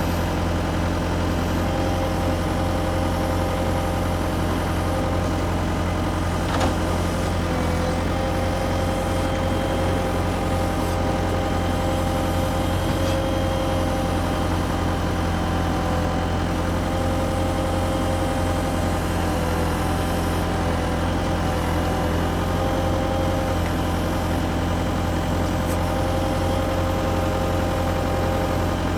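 Steady idling heavy engine sound, a constant low hum with faint steady whining tones above it, with a single light click about seven seconds in.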